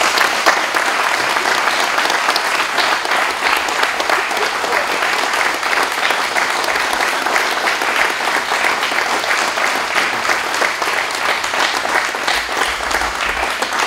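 Crowd applauding, a dense and steady clapping that holds at an even level.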